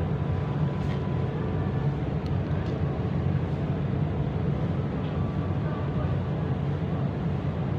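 A steady low rumble with no clear events in it.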